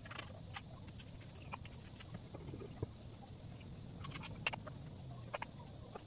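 Faint, scattered knocks, clicks and scrapes of hands working inside a wooden speaker cabinet while a 12-inch speaker is fitted into it, with a sharper knock about four and a half seconds in.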